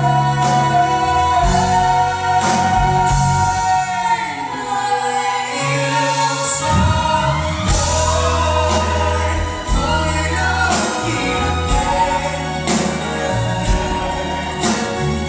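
A live band playing a song with singing, drums hitting through it.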